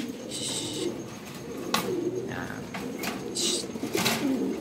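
Racing pigeons cooing, low warbling coos repeating, typical of a cock courting a hen he is pairing with. A couple of sharp clicks near the middle and end.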